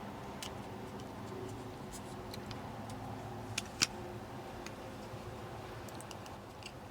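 Small plastic clicks and taps from handling a truck dashboard wiper switch's plastic cover and housing while lining them up, with two louder clicks close together about three and a half seconds in, over a steady low hum.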